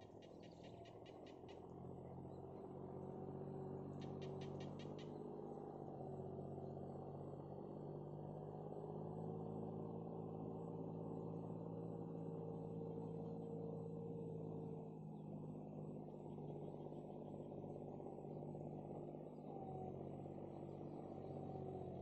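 A steady low hum made of several held pitches, swelling in over the first seconds and cutting off suddenly at the end. There is a short run of fast ticking at the start and again about four seconds in.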